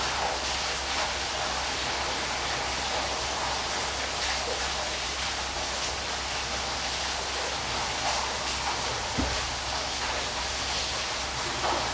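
Steady rushing of a waterfall, an even wash of water noise, with one brief low thump about nine seconds in.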